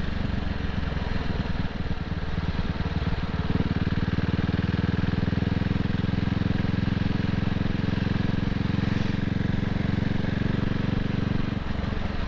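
CCM Spitfire's 600cc single-cylinder engine running steadily while the bike rides along, with wind noise on the microphone. The engine note gets louder and fuller about three and a half seconds in and eases back shortly before the end.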